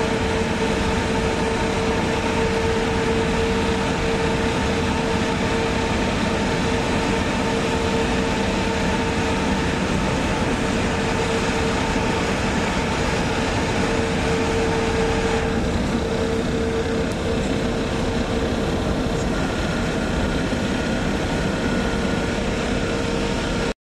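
Steady road and engine noise of a vehicle driving through a road tunnel, heard from inside the vehicle, with a steady low hum running under it. The noise turns a little duller a little past the middle.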